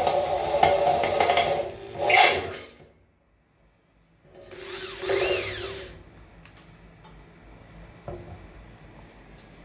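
Handheld electric drill running, its twist bit cutting through painted sheet metal, then stopping about three seconds in. After a short silence the drill runs again briefly with a rising then falling whine, winding down around six seconds in, and a single click follows near the end.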